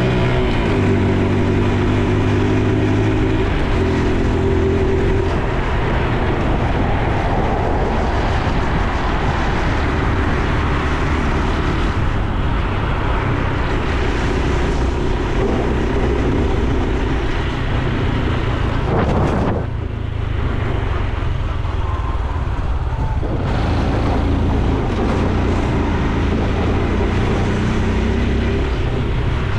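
Honda Super Cub C125's single-cylinder engine and exhaust running while riding, its pitch stepping down a couple of times in the first few seconds, over a steady haze of road and wind noise.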